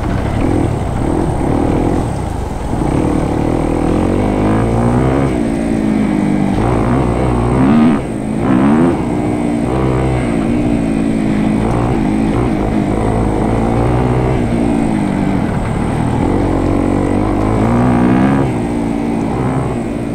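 Motorcycle engine riding a dirt trail, its revs rising and falling every second or two as the throttle is worked, with a brief louder surge about eight seconds in.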